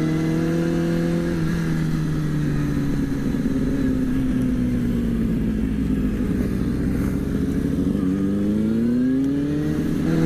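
Kawasaki ZX-6R's inline-four engine under way with wind rush, heard from the rider's helmet camera: the revs hold steady, then sink slowly as the rider rolls off the throttle, and rise again in a climbing pull near the end.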